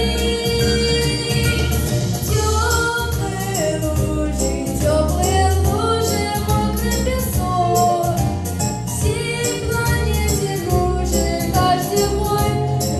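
A boy singing a song into a microphone over a backing track with a steady beat and heavy bass.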